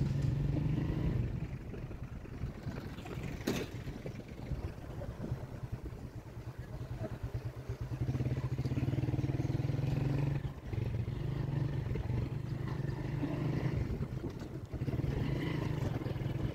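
A vehicle engine running with a steady low hum, dropping off briefly about a second in and again about ten seconds in as the throttle eases, with street traffic around it. A single sharp click sounds about three and a half seconds in.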